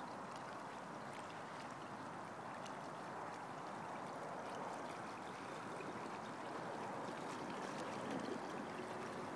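Steady rushing water noise as an inflatable kayak is pushed along by a Rhino V18 electric outboard. A faint steady motor hum comes in near the end as the kayak passes close.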